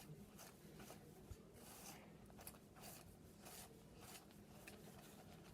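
Near silence: faint room tone with a low steady hum and a few soft scattered ticks and rustles.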